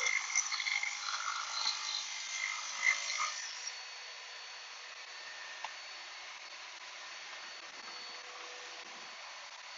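Shopsmith Mark V with a Magna Dado wobble blade cutting a dado across the grain of a board for the first three seconds or so, then running on steadily without load, with a shop vacuum running. The high-speed steel wobble blade leaves a fair amount of tear-out.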